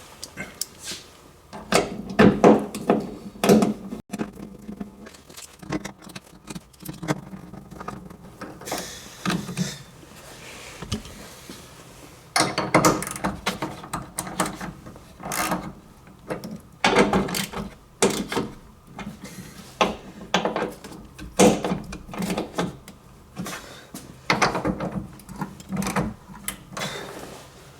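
Irregular clicks, knocks and rattles of hand tools and plastic and metal parts as a brake light assembly is reconnected and bolted back in place.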